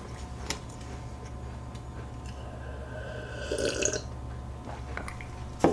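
Milk being gulped from a glass, a short burst of swallowing about three and a half seconds in, then a sharp knock near the end as the glass is set down on the wooden table.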